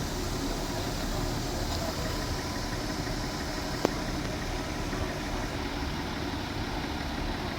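Audi Q3 diesel engine idling with a knocking noise, the sign of leaking fuel injectors on cylinders 3 and 4 whose hold-down bolts are damaged. A single sharp click about four seconds in.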